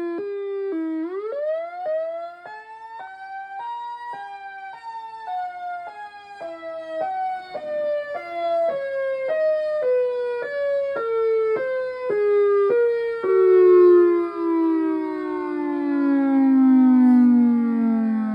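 EOWS 612 outdoor warning siren sounding an alternating wail: the tone flips back and forth between two pitches a few times a second. The whole pitch winds up from about a second in, peaks around four seconds, then slowly winds down.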